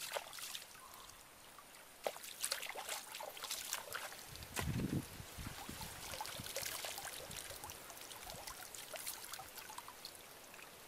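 Shallow muddy water splashing and streaming off a fine-mesh net trap as it is handled and lifted out, with one louder, lower slosh a little before halfway and dripping and trickling after.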